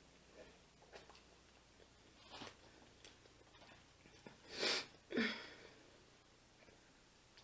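Eating and breath sounds from a person at a meal: soft chewing clicks, then two loud breathy blasts just past the middle, the second ending in a short low voiced grunt.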